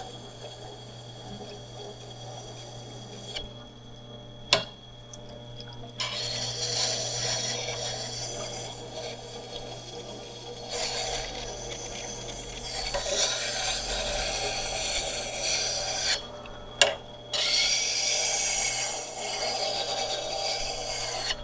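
Tormek-type wet grinder's motor humming while the steel edge of a radius-edge skew chisel grinds against the wet stone with a scraping hiss. The hiss stops twice, about three seconds in and again about sixteen seconds in, as the chisel is lifted off the stone, and a sharp click sounds in each pause.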